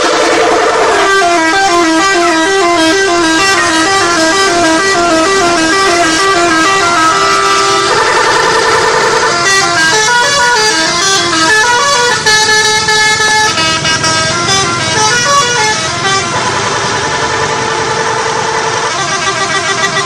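Telolet musical multi-tone bus horns playing tunes: quick runs of alternating notes broken by held chords, one pattern after another without a break.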